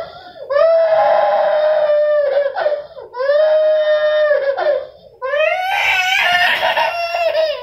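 A toddler crying in three long, loud wails, each held for about two seconds, with short breaks for breath between them.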